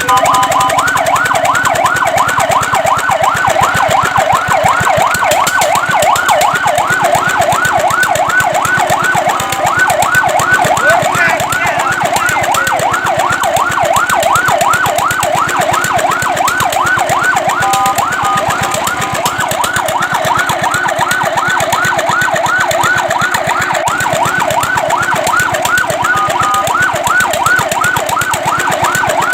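Fire truck siren in fast yelp mode, sweeping rapidly up and down about four times a second. It breaks three times into a short steady tone.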